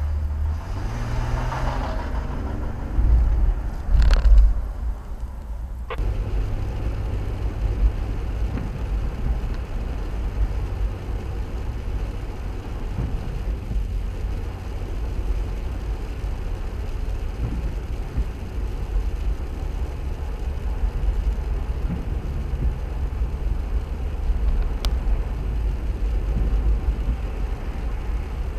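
A heavy tow truck's engine rising in pitch as it pulls away, with a couple of loud knocks about three and four seconds in. The sound then changes abruptly to a steady low rumble of a stopped vehicle's idling engine, heard from inside the cab.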